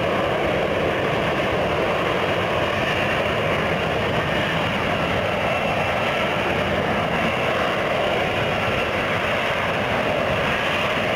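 F-35B in STOVL lift mode, its F135 jet engine and shaft-driven lift fan running together in a loud, steady roar that holds an even level.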